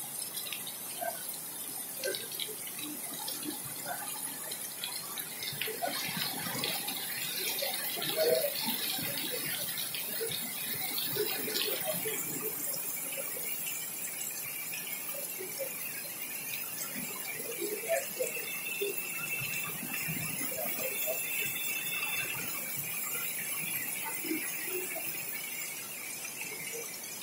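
Heavy rain falling steadily, with scattered drips and splashes close by.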